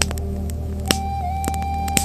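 Wood fire crackling, with scattered sharp pops, the loudest about a second in, over a steady low rumble and a thin held high tone that shifts slightly in pitch about a second in.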